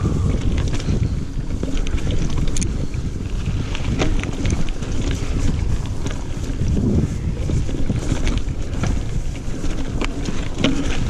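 Wind buffeting the microphone over the rumble of a single-speed Specialized Crave SL mountain bike's tyres on a dirt trail, ridden at speed. Frequent sharp clicks and rattles come from the bike as it goes over bumps.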